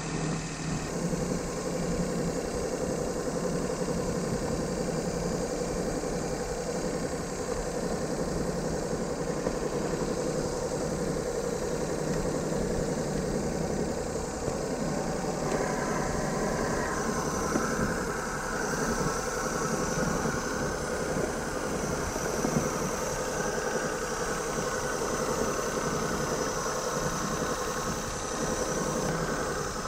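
Daihatsu Move L150S three-cylinder engine idling unevenly with a loud exhaust, which the owner puts down to a broken ignition coil on the middle cylinder leaving it running on two cylinders. The note is steady, with some higher tones joining about halfway through.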